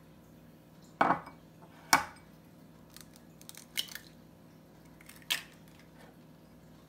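Two sharp knocks about a second apart, then a few light clicks: an egg cracked against a small ceramic bowl and dishes handled on a countertop.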